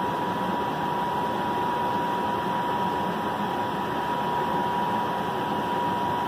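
Steady background hiss with a constant high-pitched whine running under it, unchanging throughout.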